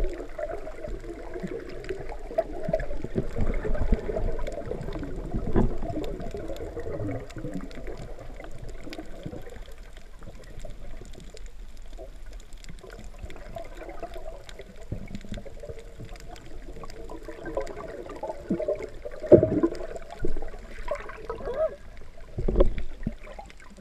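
Water heard through an underwater camera: muffled sloshing and gurgling with many faint scattered clicks, and a few louder thumps near the end.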